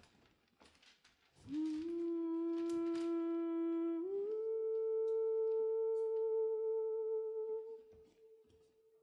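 A voice humming two long held notes: the first slides up into place about a second and a half in, the second steps up higher about four seconds in and holds until it fades near the end. Scattered light knocks and shuffles come before and under the first note.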